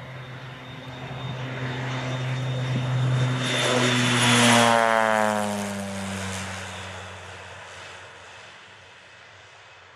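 Air Tractor AT-802 crop-duster's single turboprop engine and propeller as the plane flies low past. It grows louder to a peak about four seconds in, then drops in pitch and fades as it moves away.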